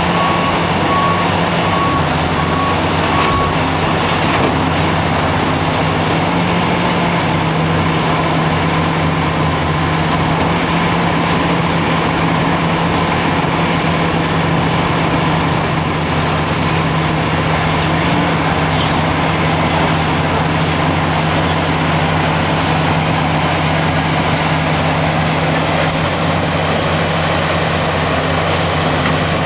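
Cat 769D off-highway dump truck's V12 diesel engine running steadily under load. A reversing alarm beeps in an even rhythm for the first few seconds, then stops.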